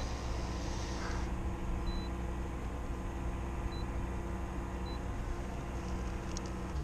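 Steady low drone of an engine or motor, with three short faint high beeps from the Lowrance fishfinder as its controls are pressed, about two, nearly four and five seconds in.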